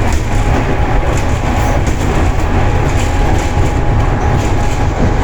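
ED4M electric multiple unit running, heard from the vestibule between carriages: a steady loud rumble of the car and running gear with a thin, steady whine above it and faint clicks from the wheels on the track.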